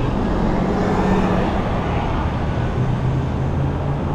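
Road traffic with a TTC city bus driving past close by, its engine humming over the steady noise of the road.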